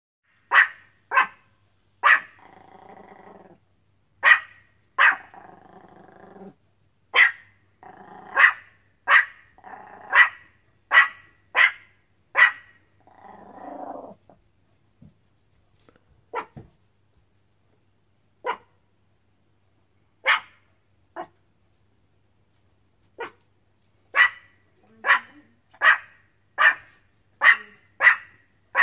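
Small Yorkshire Terrier barking at a snowman it is scared of: short, sharp barks, with low growls between them in the first half. In the middle the barks thin out to single ones a couple of seconds apart, then come in a quick run of about two a second near the end.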